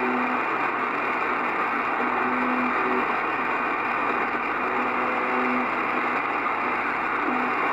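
The Russian military 'buzzer' on 4625 kHz (UVB-76), received in upper sideband on an Icom IC-R8500 communications receiver. Short buzzes, each about a second long, repeat about every two and a half seconds through a steady rush of shortwave static.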